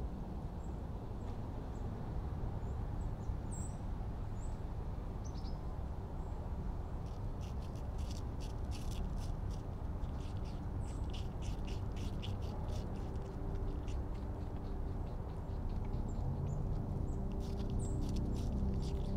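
Wild cottontail rabbit chewing apple peelings close to the microphone: runs of quick, crisp clicks, starting about seven seconds in and again near the end, over a steady low outdoor background with a few faint bird chirps.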